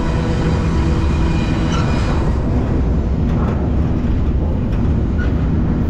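Freight train in motion: a loud, steady rumble with a constant low hum running through it.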